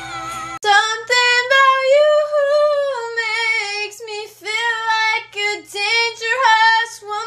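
A young woman singing solo and unaccompanied, her high notes bending and wavering in short broken phrases, stopping abruptly near the end. Before her voice comes in, about half a second of recorded pop music with a woman singing is cut off suddenly.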